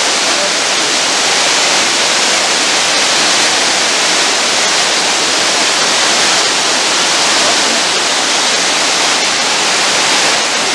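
Waterfall running steadily, an even rush of water with no breaks.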